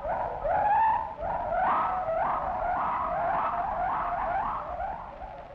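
A gibbon calling: a long series of rising whoops, about two a second, that stops near the end.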